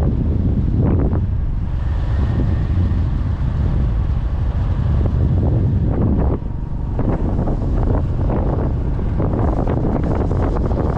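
Road and engine noise of a moving car, a steady low rumble, with wind buffeting the microphone.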